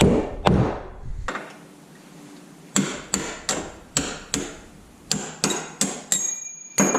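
Hammer blows, two heavy ones in the first second, then after a short pause a quicker run of lighter, sharper strikes about three a second, with a brief metallic ring near the end.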